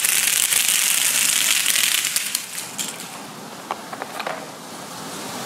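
Hundreds of wooden spring mousetraps snapping off in a chain reaction: a dense crackle of snaps that thins out after about two and a half seconds, followed by a few scattered single snaps.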